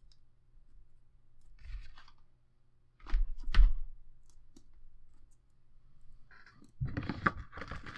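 Hands handling a spiral-bound paper book on a tabletop: a brief rustle, then a couple of loud knocks as the book is moved about three seconds in, and a longer stretch of rustling and scuffing near the end.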